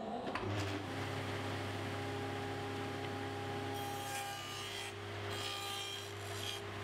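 Table saw motor spinning up and then running steadily. From about four seconds in, the hiss of the blade cutting a dado into plywood joins it.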